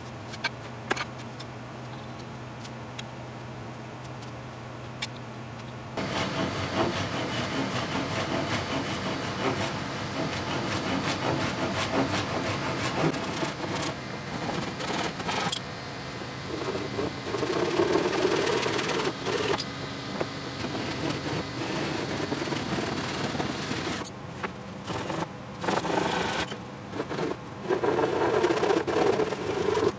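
Japanese pull saw (Tajima Japan Pull 265) cutting through thin wood with rapid rasping strokes, starting about six seconds in. Near the end a tool is rubbed back and forth along the wood's edge.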